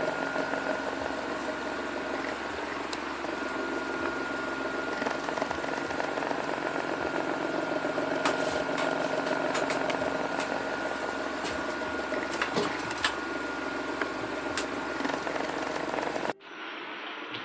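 A steady mechanical hum with a thin, constant whine, with scattered light clicks and rustles from clothes being handled at a wooden wardrobe, busiest around the middle. The sound cuts off abruptly near the end.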